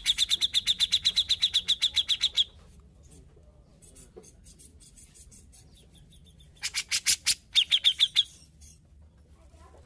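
Grey-cheeked bulbul (cucak jenggot) calling: a fast run of sharp repeated notes, about ten a second, for about two and a half seconds. Fainter notes follow, then a second, shorter run about seven seconds in.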